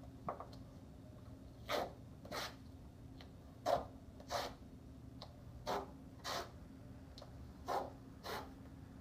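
A person breathing close to the microphone, steady and rather fast: an airy in-and-out pair of breaths about every two seconds, over a faint steady room hum.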